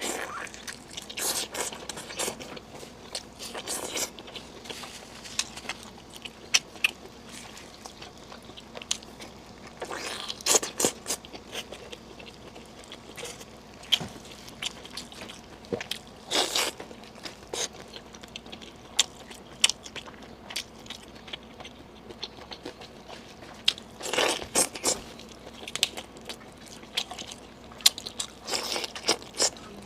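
Intermittent crunching, scraping and clicking, coming in short clusters a few seconds apart with scattered single clicks between.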